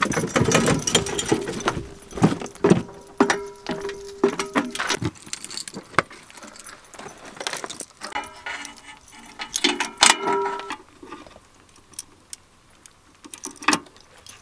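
Metal clips and hardware of long red cable dog leashes jangling and clinking as they are uncoiled and clipped on. The clinks come in irregular clusters that thin out toward the end.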